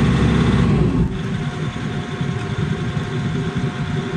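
Excavator's diesel engine idling, heard from inside the cab; its low drone drops and gets quieter about a second in.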